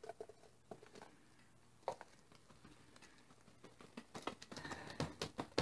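Baking soda poured from its cardboard box into an empty plastic grated-Parmesan jar: faint scattered taps and clicks of box against jar, thickening into a soft pattering rustle from about four seconds in.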